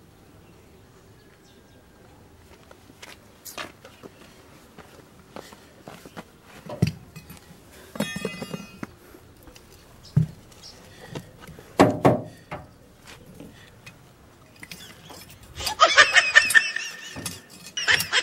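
Scattered clinks and thuds of metal being knocked and handled, one clink ringing briefly. Loud laughter breaks out near the end.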